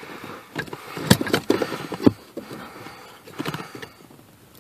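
Irregular clicks and knocks of pliers working a plastic Mazda 3 clutch master cylinder as it is twisted clockwise into its metal pedal-bracket mount. The two sharpest come about a second in and about two seconds in, then it quiets.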